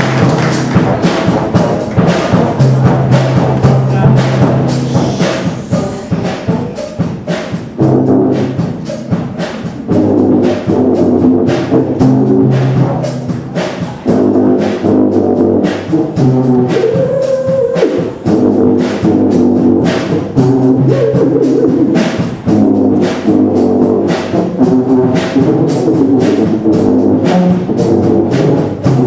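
Concert wind band playing a brass-heavy piece over a steady drum beat, with a sousaphone holding a low bass line under the chords.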